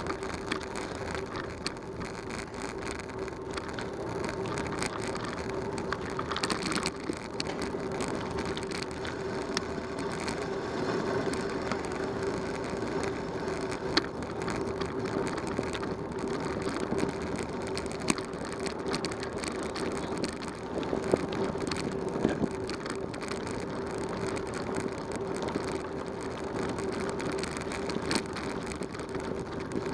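Bicycle rolling over a dirt and gravel road: tyres crunching, with scattered clicks and rattles over a steady hum.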